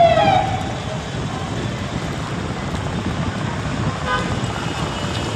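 Convoy of SUVs driving slowly past, a steady rumble of engines and tyres. Right at the start a loud horn-like tone glides downward, and a short higher toot sounds about four seconds in.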